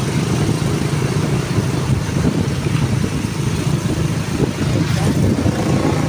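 Motorcycle engine of a tricycle running steadily while riding, a continuous low engine noise with a hiss of moving air over it.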